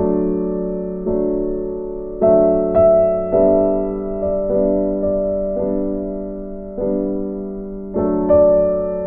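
Slow piano music: a chord struck about once a second, each ringing and fading before the next.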